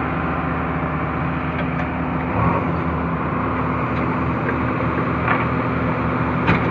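Heavy machine's diesel engine running steadily, with a low rhythmic pulsing coming in about two and a half seconds in.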